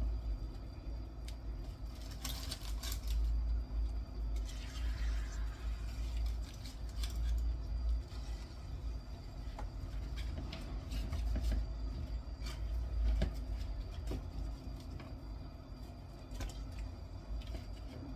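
Pot of water boiling on the stove, with a steady low rumble, as chopped fruit and leaves are dropped in: scattered knocks and clinks, with two short splashy bursts about two and five seconds in.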